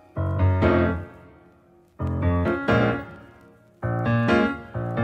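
Background piano music: groups of chords struck about every two seconds, each fading away before the next.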